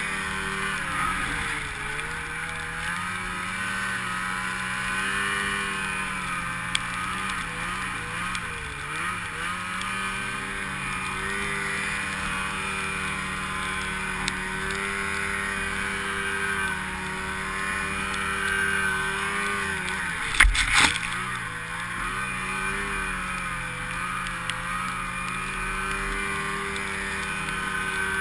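Snowmobile engine running under load through deep fresh powder, its pitch rising and falling with the throttle. A brief, loud knock about twenty seconds in.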